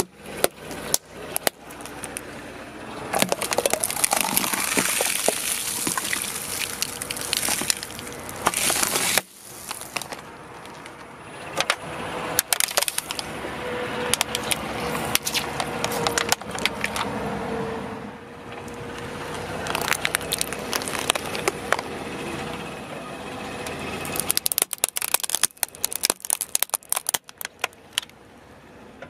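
Car tyre rolling over and crushing small objects, including plastic baby pacifiers and an orange on a plastic plate, giving runs of sharp cracks and crunches. The cracking comes in spells, with the busiest stretches in the first third, the middle and again near the end.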